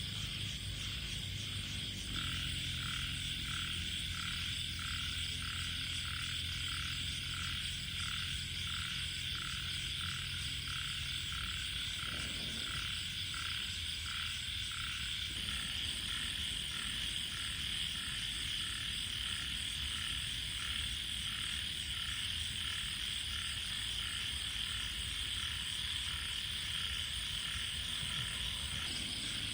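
A frog calling in an even, repeating series, a little under two calls a second, over a steady high chorus of night insects.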